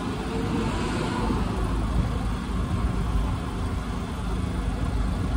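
A vehicle engine running steadily, a low continuous rumble.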